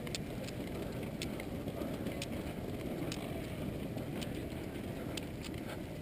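Sharp plastic clicks, roughly one a second at an uneven pace, from a Rubik's Cube being caught and its faces twisted while it is juggled with three balls, over a steady outdoor background rumble.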